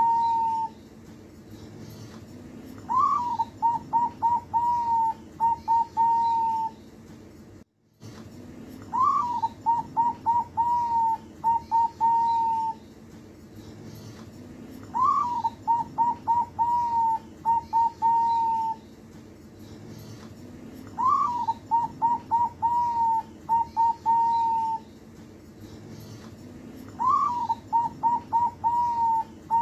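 Zebra dove (perkutut) singing its cooing song phrase five times, about every six seconds. Each phrase opens with a rising-falling note, runs into a quick string of short coos and ends on a longer held coo.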